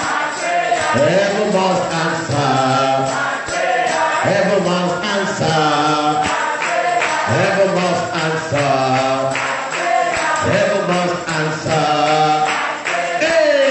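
A church congregation singing a chant-like chorus together, many voices carrying one repeating phrase.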